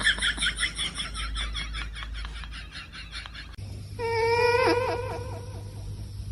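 An animal's calls: a fast run of short high chirps, several a second, fading away. After a sudden cut comes a long, wavering whine with a few quick dips in pitch.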